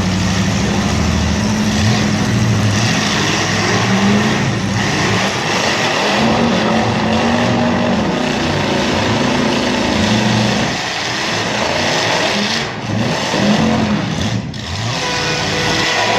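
Several demolition derby cars' engines running and revving up and down at once, loud and dense, over a steady noisy haze.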